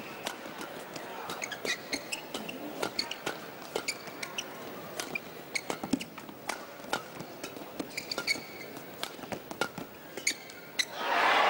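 Badminton rally: rackets striking the shuttlecock again and again, with short squeaks of players' shoes on the court. Near the end the crowd breaks into cheering and applause as the point ends.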